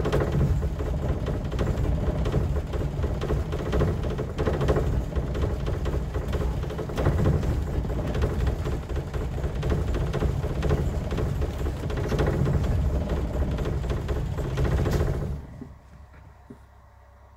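Ford Cortina engine running roughly, heard at the exhaust tailpipe: an uneven, lumpy exhaust note. It stops suddenly about fifteen seconds in.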